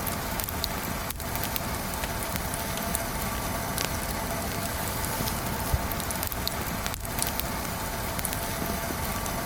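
Wood campfire burning, a steady hiss with small scattered crackles and pops.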